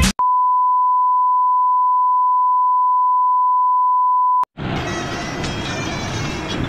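Steady 1 kHz test tone, the beep that goes with colour bars, held for about four seconds and cut off abruptly. Background music comes back about half a second later.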